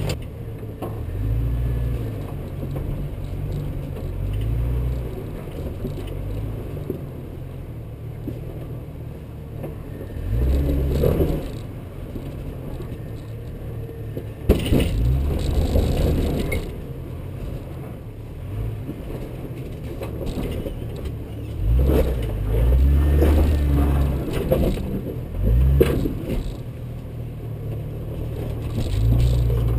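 Jeep Cherokee XJ engine crawling at low revs over a rocky trail, swelling up in revs several times as it climbs over rocks. Sharp knocks and rattles from the body and suspension come in between, the loudest about halfway through.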